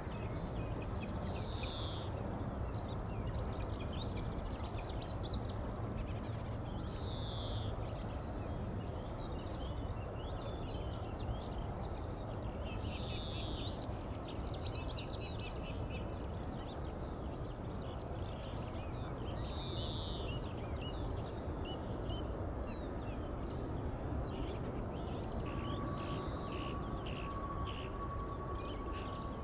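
Small birds singing and chirping over a steady low outdoor rumble, with a louder call repeating about every six seconds. Near the end a thin steady tone comes in.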